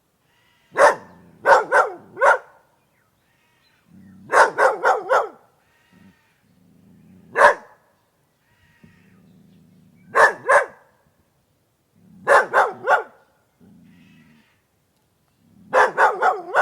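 A dog barking in short volleys of one to four barks, with pauses of a second or more between volleys.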